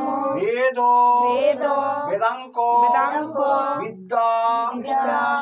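A voice singing a slow devotional song, holding long notes in drawn-out phrases with short pauses for breath.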